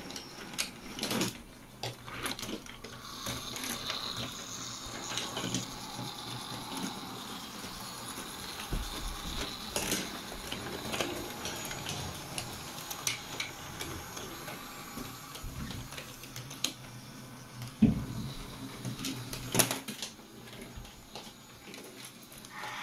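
Small electric motors of battery-powered Brio toy trains whirring steadily as they run, with wheels clicking over track joints and a few sharper plastic-and-wood clacks, the loudest two near the end.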